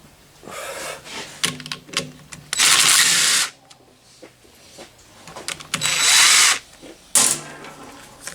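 A power drill/driver spinning bolts out of the engine's covers in four short runs, the loudest lasting about a second, with clicks of the tool and parts being handled between runs.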